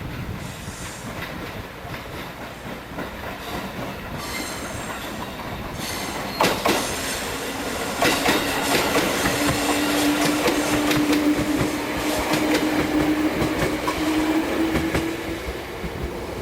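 Electric train on the move, its wheels clicking over rail joints, with a steady low whine that rises slightly, growing louder from about six seconds in and fading near the end.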